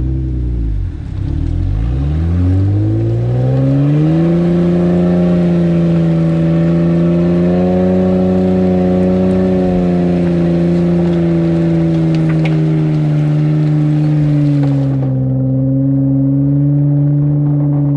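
A Jeep engine revs up hard over a few seconds and is held at high revs, as a Jeep strains in thick mud during a stuck-vehicle recovery. Near the end the revs ease slightly and the sound turns duller.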